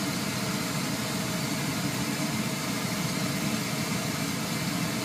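Steady mechanical hum with an even hiss, kitchen background noise, holding at a constant level without knocks or clatter.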